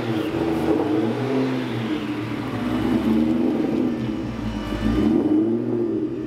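Whipple-supercharged V8 of a 2003 Mustang SVT Cobra running at low speed on light throttle as the car rolls off. Its exhaust rumble rises and falls with small changes in revs.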